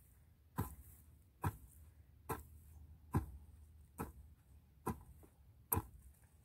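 Garden hoe chopping into the soil: seven strikes at a steady pace of just over one a second.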